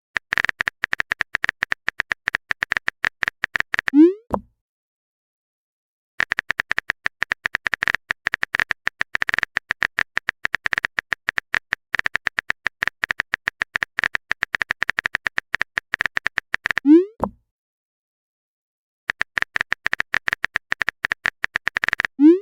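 Simulated phone-keyboard typing: three runs of rapid tapping clicks, each ended by a short rising pop like a message-sent sound, with silent pauses between the runs.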